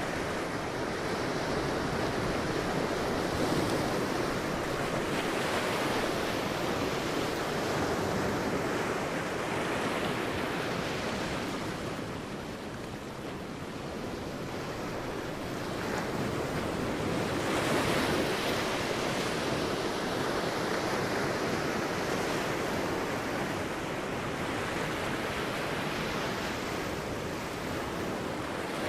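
Sea waves breaking and washing on a beach, a steady surf that swells and eases every few seconds, with wind on the microphone.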